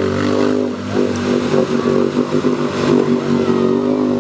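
ATV engine running at high revs, its pitch wavering up and down in quick surges through the middle, then holding steadier near the end.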